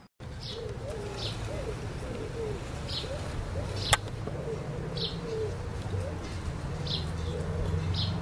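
Birds chirping, short high chirps about once a second, with a single sharp crack about four seconds in, typical of a croquet mallet striking a ball.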